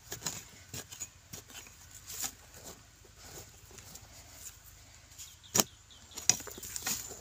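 A hand digging tool working dry, crumbly soil while a wild yam tuber is dug out: scattered light scrapes and knocks, with two sharp strikes about five and a half and six seconds in.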